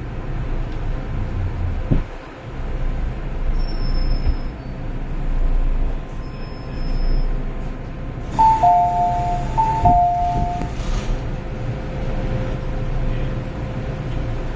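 MTR M-Train running into a station: a steady low rumble from the car with a faint thin high squeal twice as it slows. About eight seconds in, an electronic two-tone chime (high note then lower note) sounds twice as the train draws alongside the platform.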